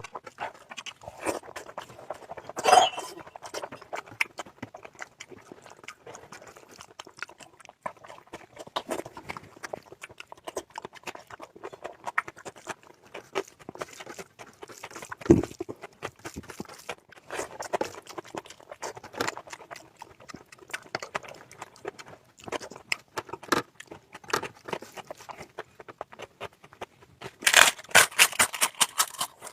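Close-up chewing and mouth sounds of someone eating curry with rice: many short, irregular clicks, with a louder, denser run of clicks near the end.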